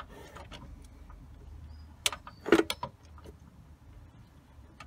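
Metal clinks and taps from tools and engine parts while the BMW M57 diesel's crankshaft is turned over, with a short clatter about halfway through, over a low steady hum.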